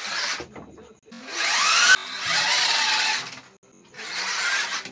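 Small DC motors of a homemade 4x4 RC car whirring in short bursts, several starts and stops, with the pitch rising as they speed up.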